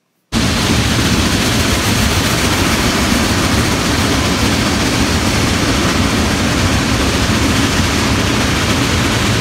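Steam locomotive working hard, heard from an open passenger car behind it: a loud, steady rumbling rush with a heavy low end. It cuts in abruptly just after the start.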